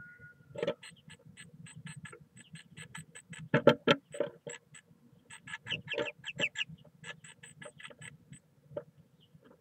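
Great tit inside a wooden nest box making a rapid, even run of short taps, about four a second, with a few louder knocks about four seconds in.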